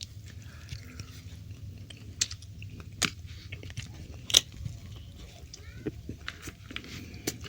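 Close-miked chewing and biting of a mouthful of tongkol fish, soft wet mouth sounds broken by a few sharp clicks.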